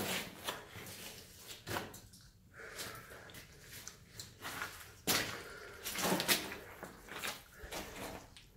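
Footsteps squelching and splashing through wet mud and shallow water on a cave floor, in uneven steps, with the loudest ones near the start, about 5 seconds in and around 6 seconds in.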